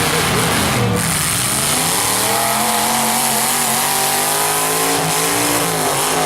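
Demolition derby cars' engines revving hard, their pitch slowly rising and falling over a dense, steady wash of engine and exhaust noise.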